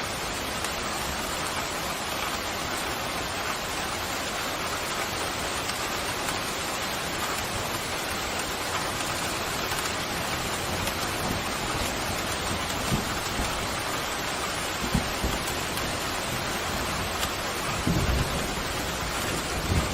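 Steady heavy rain falling, with a few brief low rumbles of distant thunder in the second half.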